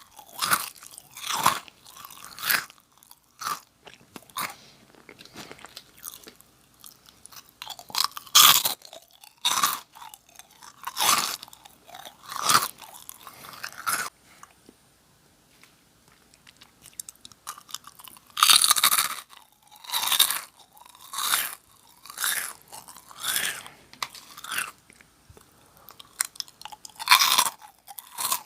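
Crunchy Jagalchi snack crackers being bitten and chewed close to the microphone: a run of crisp crunches, about one or two a second, with a quieter stretch of soft chewing about halfway through before the crunching picks up again.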